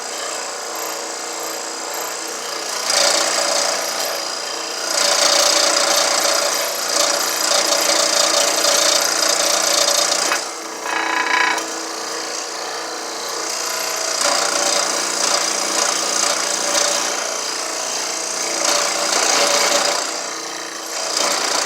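Electric power saw cutting through a block of stump wood. The motor runs steadily, and the sound gets louder in two long stretches while the blade is under load, with a brief squeal about 11 seconds in.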